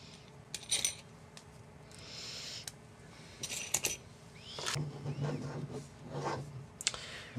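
Small screws and frame standoffs being handled and driven into a carbon-fibre quadcopter frame with a hex driver: a few light metallic clinks, some with a short ring, and a brief scrape.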